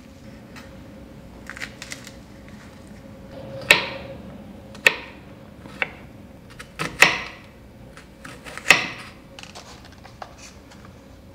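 A kitchen knife slicing vegetables on a wooden cutting board. About five cuts come a second or so apart, each ending in a sharp knock of the blade on the board.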